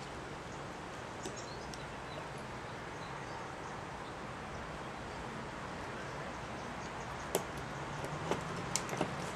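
A few small sharp clicks from a wire terminal being worked out of a plastic ECU wiring connector with a pick tool, faint about a second in and more often near the end, over a steady background hiss.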